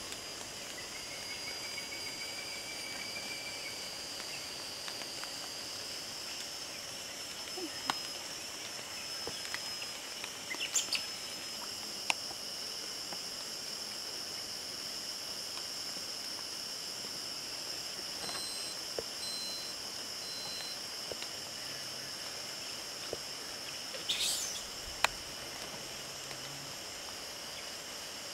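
Forest ambience: insects keep up a steady high-pitched drone on two pitches, broken by a few sharp clicks and a short bird call about 24 seconds in.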